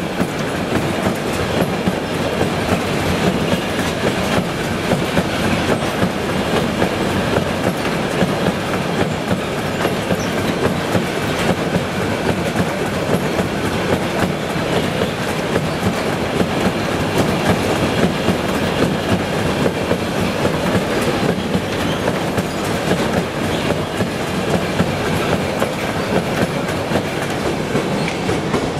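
A train rolling through at speed, its wagons clattering steadily over the rail joints.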